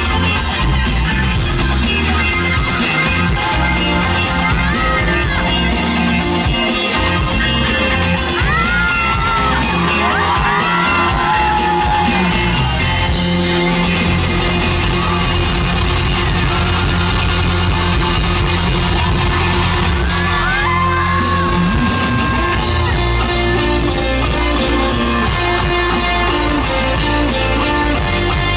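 Live pop band music played loud through a concert sound system, with a steady heavy bass beat. High voices yell and whoop over it now and then, mostly around the middle.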